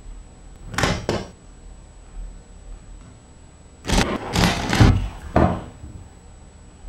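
A blade digging and scraping into loose dirt. There is a double scrape about a second in, then a run of four strokes a little under half a second apart near the middle.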